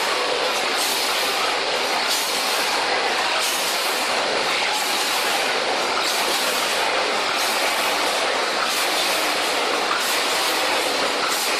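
Steady mechanical din of a running snack pouch-packing line (feeder, bucket elevator and packing machines), with a hiss that pulses unevenly about once or twice a second.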